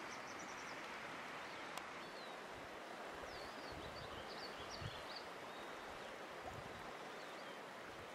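Steady faint rush of flowing river water, with small birds chirping briefly near the start and again around the middle.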